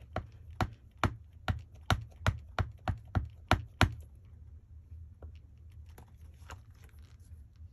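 Wooden-backed rubber stamp tapped repeatedly onto an ink pad in its plastic case, inking the stamp: about a dozen sharp taps at roughly three a second, then a few fainter clicks.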